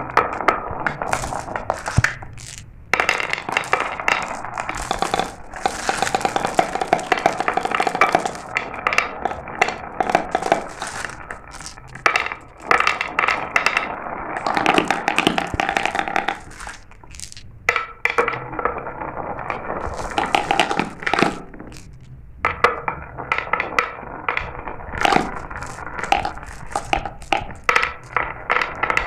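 Glass marbles rolling and clattering down a marble run, a dense stream of clicks and rattles with a few short lulls.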